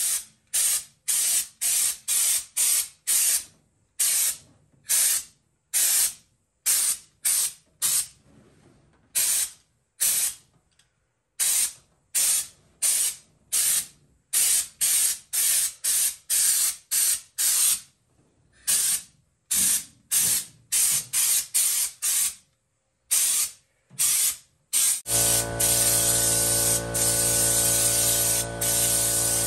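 Air-powered schutz undercoating gun spraying bedliner, fired in many short hissing blasts, about one or two a second. About 25 seconds in, the spray turns continuous and a steady low hum joins it.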